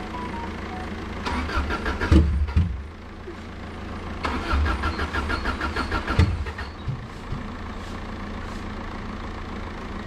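Subaru Impreza's flat-four engine being cranked on the starter twice, a second or so in and again about four seconds in, each spell lasting a couple of seconds without catching, over a steady low engine drone. The car has a very bad misfire after sitting and won't keep running.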